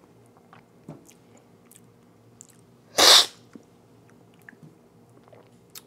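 One short, loud slurp about three seconds in: brewed coffee sucked hard off a cupping spoon, the hissing slurp used in coffee cupping to spray the coffee across the palate.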